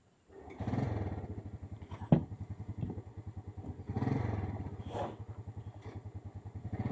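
A small engine running with a fast, even pulse, swelling louder about a second in and again around four seconds. A single sharp knock about two seconds in is the loudest moment.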